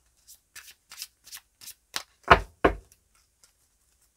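Tarot cards being shuffled by hand: a run of short, soft clicks and rustles, then two louder knocks a little after two seconds in.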